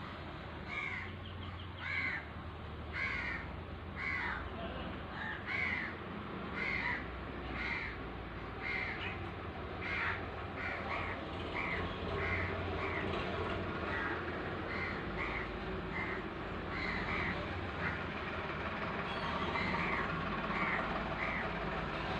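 A bird calling over and over, short harsh calls at about one a second, coming faster, about two a second, from about halfway through, over a steady low hum.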